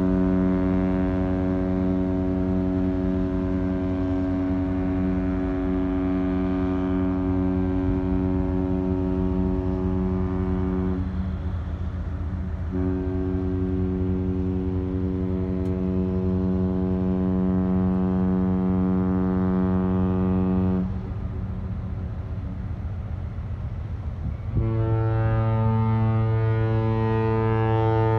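Container ship's horn sounding long, deep, steady blasts. One ends about eleven seconds in. After a short pause a second runs for about eight seconds. Near the end a third starts, slightly higher in pitch.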